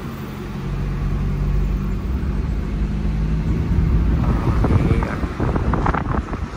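Maruti Zen car driving on a hill road, heard from inside the cabin: a steady engine hum, turning rougher and noisier with road rumble in the second half.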